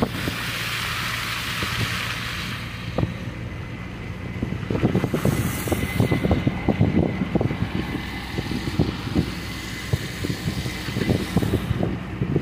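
Wind buffeting the microphone in irregular thumps over a low steady rumble from a Konstal 805Na tram set running on the track at a distance.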